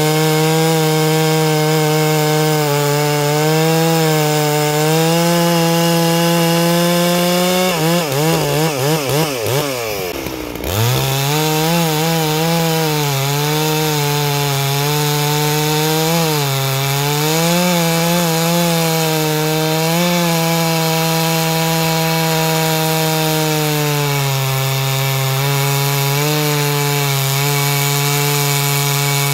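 Stihl MS660 single-cylinder two-stroke chainsaw with an aftermarket cannon muffler, running at high revs under load while cutting through a large log. The engine note wavers and drops sharply about ten seconds in, then climbs back and holds steady.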